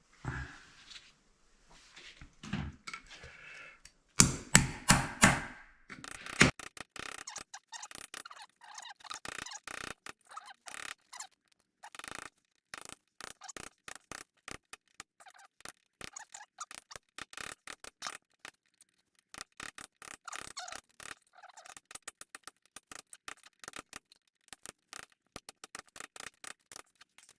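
Hammer striking a chisel to chip concrete out of a slab around a toilet drain: about six heavy blows a few seconds in, then a long run of quicker, lighter taps.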